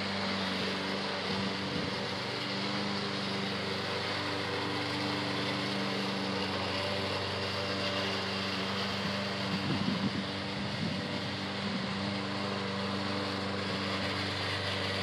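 Walk-behind rotary push mower's small single-cylinder engine running at a steady speed while cutting grass, now starting and running after a carburetor fault had kept it from starting. A brief rougher patch comes about ten seconds in.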